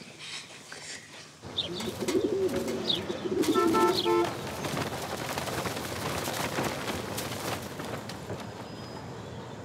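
Pigeons cooing, with a few short high chirps. About four seconds in, the cooing gives way to a dense flurry of wingbeats as the flock takes off, fading toward the end.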